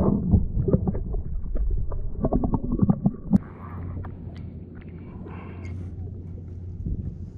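Muffled, rumbling water noise with many short knocks from a camera under the water for about three and a half seconds, then a sudden drop to a quieter steady low hum of water and wind around the kayak.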